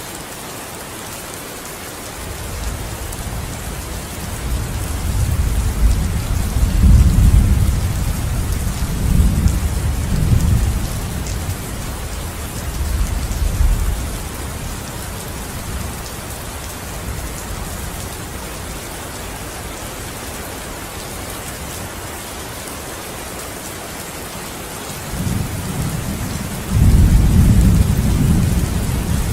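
Steady rain falling, with rolling thunder rumbling low underneath: one long roll that builds from a few seconds in and swells several times, and a second, sharper roll near the end.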